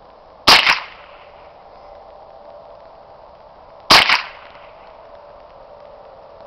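Two rifle shots from a scoped rifle fired off a bench rest, about three and a half seconds apart. Each is a sharp crack with a second, weaker crack just after it.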